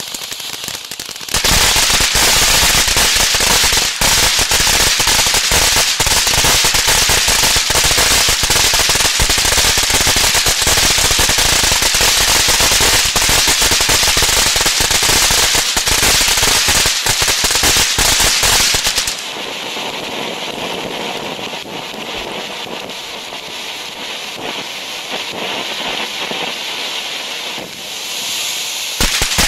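Red Reign ground fireworks fountain (Heavyweight Fireworks) burning, starting with dense, rapid, loud crackling from about a second and a half in. About two-thirds through it eases to a quieter, steady hiss of a gold spark spray, then grows loud again at the very end.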